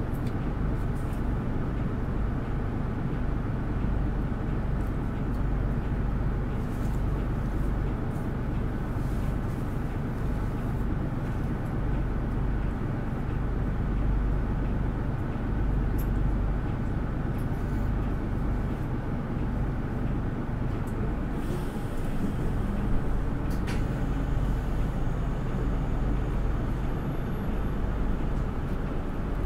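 Nissan Diesel Space Runner RA city bus (PDG-RA273MAN) under way, heard from inside the cabin: a steady diesel engine drone with road noise. The engine note shifts about two-thirds of the way through, and there are a few light clicks.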